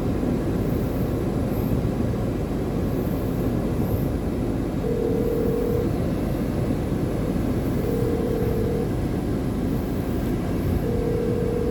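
Telephone ringback tone heard over a phone's speaker: three steady one-second beeps about three seconds apart while an outgoing call rings. A steady low rumble runs underneath.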